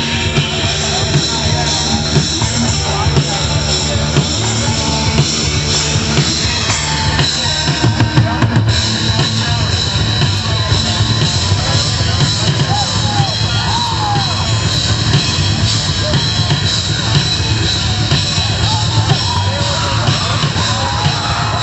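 Rock band playing live at full volume, with the drum kit driving a steady, dense beat.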